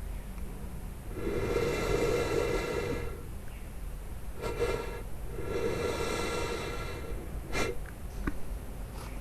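Raspy, breathy hisses offered as Komodo dragon sound effects: three drawn-out bursts, about a second and a half, half a second and a second and a half long, with a few short clicks near the end.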